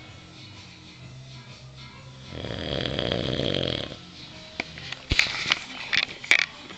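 A man's weird snore: one long loud snore starting about two and a half seconds in, then a run of sharp clicks and short snorts near the end.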